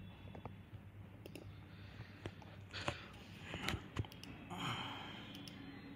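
A few scattered computer mouse clicks over a faint steady low hum, with a short soft hiss a little before the end.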